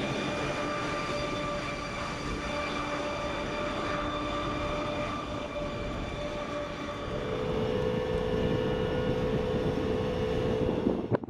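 M1 Abrams tank driving, its AGT1500 gas-turbine engine giving a steady high whine over the rumble and clatter of its tracks; the whine shifts slightly lower partway through. A sudden bang comes right at the end.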